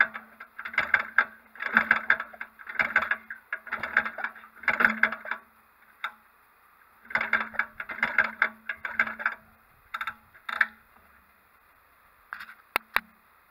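Maytag Model 72 two-cylinder two-stroke engine firing in short sputtering bursts about a second apart, with a pause about six seconds in and a few last pops near the end.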